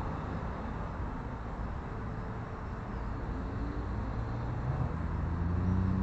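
Background street traffic: a steady rumble of road noise, with a vehicle engine's low hum building up and growing louder in the second half.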